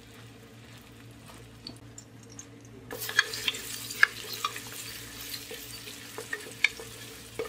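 Chopped onions sizzling in hot oil in an aluminium pressure cooker, faintly at first. About three seconds in, a spatula starts stirring them: the sizzle gets louder, with scraping and a few sharp knocks of the spatula against the pot.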